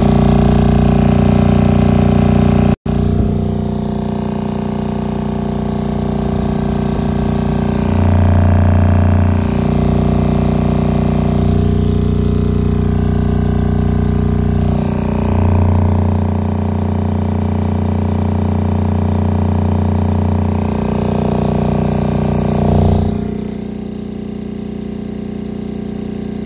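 New 12-inch EX900 Protech subwoofer playing a loud, steady low test tone during its break-in, driven at about 50 volts from a tone generator, with a buzzing edge of overtones. The tone steps down to a deeper note twice.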